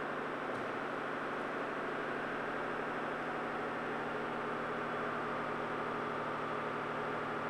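Steady hiss with a low, even hum underneath; no distinct events.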